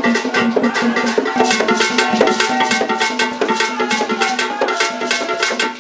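Ghanaian traditional drum ensemble playing tall hand drums, with palm and stick strokes in a fast, dense, steady rhythm over held pitched notes.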